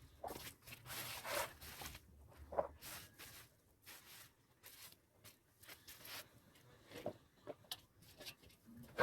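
Pigs chewing carrots: irregular, faint wet crunching and rustling.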